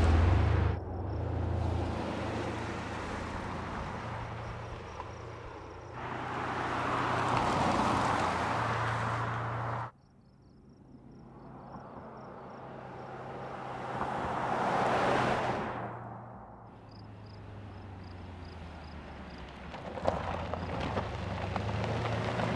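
A 2020 Mercedes-Benz GLS 580 SUV with a twin-turbo V8 drives past on a mountain road. Its engine and tyre noise swells as it approaches and fades as it moves away, several times over. The passes are short takes joined by abrupt cuts.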